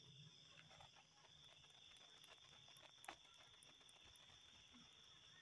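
Near silence, with a faint steady high trill of crickets in the background and a few faint soft taps, the clearest about three seconds in.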